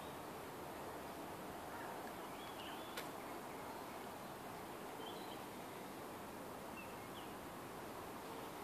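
Quiet outdoor garden ambience: a steady hiss of background noise with a few faint, short bird chirps scattered through it, and one sharp click about three seconds in.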